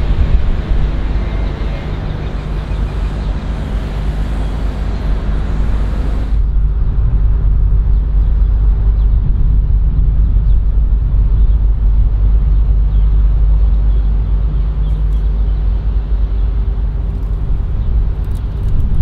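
Steady low engine rumble, with a higher hiss that cuts off about six seconds in.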